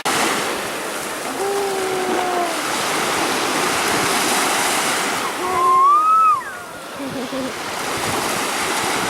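Ocean surf washing steadily on the beach, with a voice calling out twice in long drawn-out notes, the second higher and louder.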